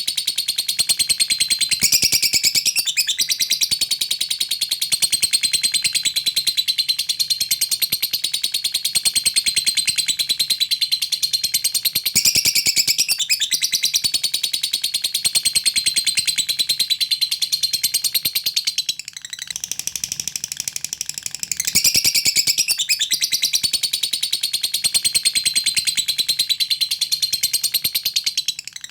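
Lovebird giving a long, rapid, unbroken high-pitched chatter (the 'ngekek' call, used to call out a rival). It breaks off briefly about 19 seconds in, then picks up again about three seconds later.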